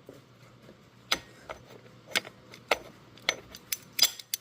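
A hand cutting tool clicking as it is worked through a radiator hose at its brittle plastic fitting: a run of sharp clicks about two a second, starting about a second in.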